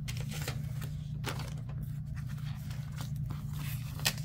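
Sticker sheets and paper planner pages rustling and scraping as they are handled and flipped, in several short strokes, over a steady low hum.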